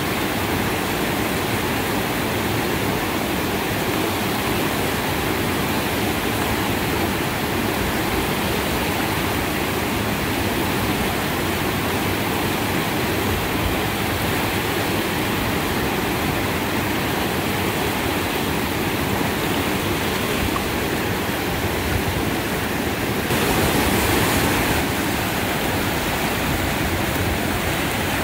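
Whitewater river rapids rushing steadily, a dense, even hiss. It swells briefly louder for a second or so near the end.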